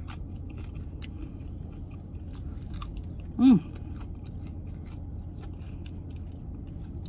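Person chewing and biting into crispy fried chicken wings, with scattered small crunches and wet mouth clicks. A short hummed "mm" comes about three and a half seconds in, over a steady low air-conditioner hum.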